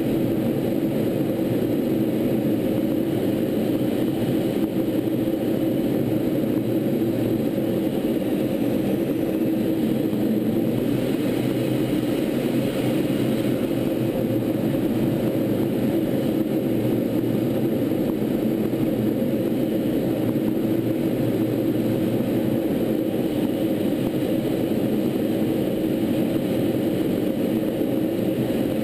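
Steady in-flight drone of a T-38 Talon jet trainer, heard from on board: its twin J85 turbojets and the airflow over the airframe. The hiss grows a little brighter for a few seconds near the middle.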